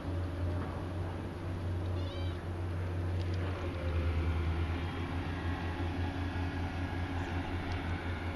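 A stray cat gives a short, high meow about two seconds in, over a steady low rumble.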